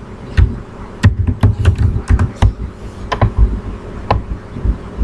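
Typing on a computer keyboard: irregular keystrokes, a few a second, each a sharp click with a dull thud.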